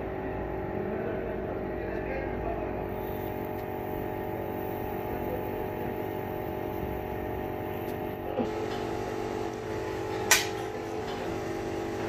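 Steady hum of a small electric motor, holding several constant tones, with a sharp click about ten seconds in.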